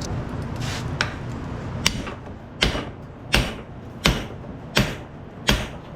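Hammer blows on the collar of a hydraulic cylinder, driving it into the barrel. A few lighter taps come first, then about six heavy metallic strikes at an even pace, a little more than one a second. A steady low hum runs underneath.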